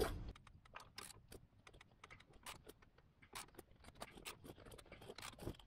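Faint, irregular clicks and light metal clinks of a socket wrench ratchet being worked by hand, tightening a rivet nut (nut cert) to seat and crush it.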